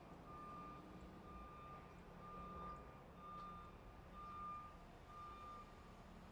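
Truck reversing alarm beeping: a single steady tone, about one beep a second, each lasting around half a second, over a low engine rumble. The beeps stop shortly before the end.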